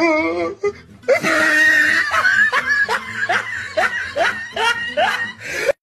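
Comic laughter sound effect laid over music: a wavering laugh at the start, then a run of short rising laughs about twice a second, cut off abruptly near the end.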